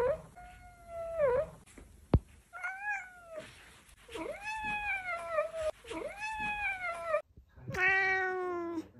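Domestic cats meowing: one cat gives a run of about five rising-and-falling meows, then a second cat gives one louder meow near the end. A single sharp click comes about two seconds in.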